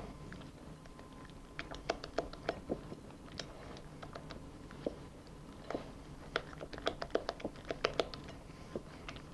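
Spatula mixing melted chocolate into chestnut cream in a glass bowl: irregular light clicks and taps of the spatula against the glass, several a second at times. A faint steady hum lies underneath.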